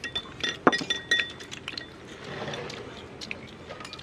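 Chopsticks clinking against small ceramic rice bowls: several ringing clinks in the first second and a half, then lighter scattered taps.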